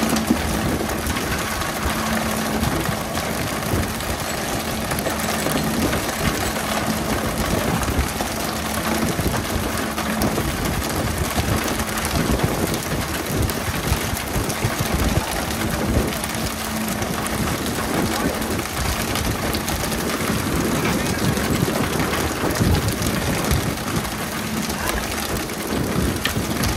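Pole-and-line fishing boat at work: a steady engine hum under a constant hiss of water spray, with many scattered slaps and knocks as skipjack tuna are poled out of the water and land on the deck.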